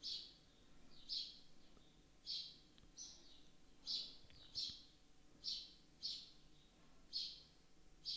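A bird chirping: about ten short, high chirps, spaced unevenly roughly a second apart.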